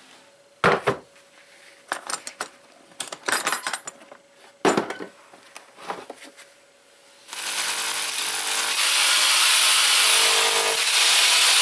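Scattered clicks and knocks of handling. Then, about seven seconds in, a DEKO DKH1000W rotary hammer starts drilling into a brick wall and runs loud and steady.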